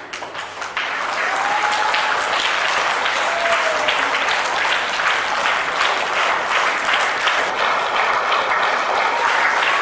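An audience of schoolchildren clapping in a hall, swelling over the first second and then holding steady.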